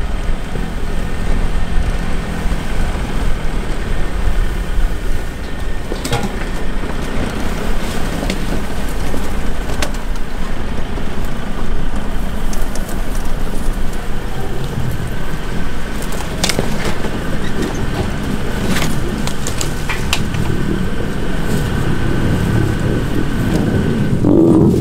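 Safari vehicle's engine running steadily as it drives after the lions, with occasional clicks and knocks. Near the end a lion's low growl sets in over the kill.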